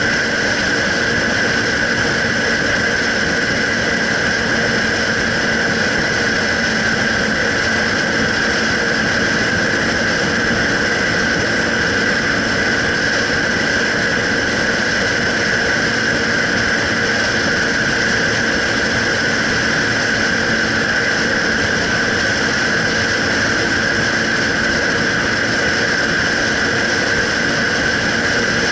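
Motorcycle engine running at a steady cruising speed, picked up by a camera mounted on the handlebars, together with road and wind noise. The pitch holds even throughout, with no gear changes or revving.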